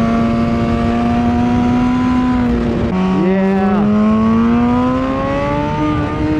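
2016 BMW S1000RR's inline-four engine running at part throttle on a cool-down lap after a flying lap, its pitch slowly climbing, dropping suddenly about three seconds in at a gear change, then climbing again. A brief rising-and-falling whine comes just after the gear change.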